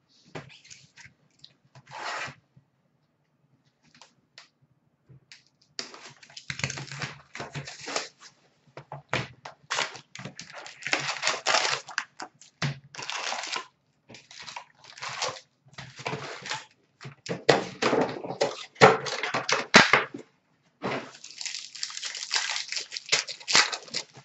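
Foil wrappers of 2019-20 Upper Deck hockey card packs crinkling and tearing as the packs are ripped open by hand. Only scattered clicks at first; irregular crackling sets in about six seconds in and keeps on, with a brief pause near the end.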